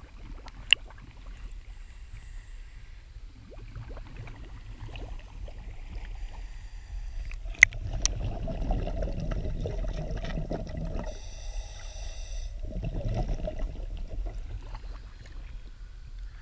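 Water lapping and splashing at the surface with small clicks, then from about halfway through a louder muffled rumbling and gurgling heard underwater, easing off near the end.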